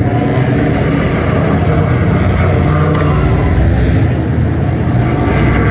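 Car engines running, a loud steady drone with no clear rise or fall.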